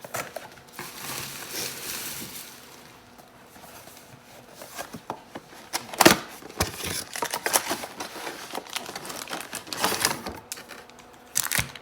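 Trading card packs and cards being handled: plastic pack wrapper crinkling and tearing, with cards shuffled and flipped in quick clicks and a sharper click about six seconds in.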